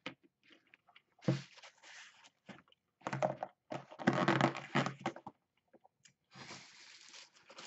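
Eating takeout: chewing, with the crunch and scrape of scooping the last beef and fried rice out of the container, in three bursts.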